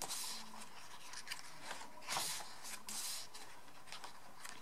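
Glossy photobook pages of a K-pop album being turned and rubbed by hand: soft paper swishes and rustles, three main ones near the start, about two seconds in and about three seconds in.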